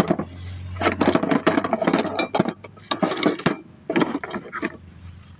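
Metal hand tools (wrenches and pliers) clinking and clattering against each other as a hand rummages through them in a tray. The clatter comes in quick flurries of knocks: a thick run from about a second in, and a shorter one near the end.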